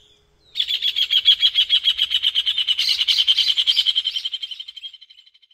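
A bird's long, fast trill on one steady high pitch, about ten notes a second, starting about half a second in and fading away near the end.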